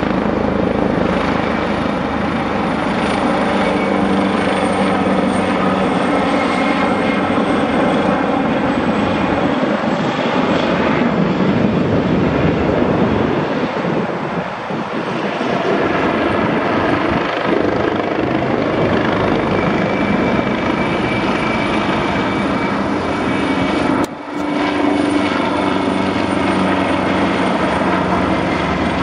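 AgustaWestland AW139 twin-turbine helicopter flying overhead, its rotor and engines running steadily, with a short sudden drop in level about five seconds before the end.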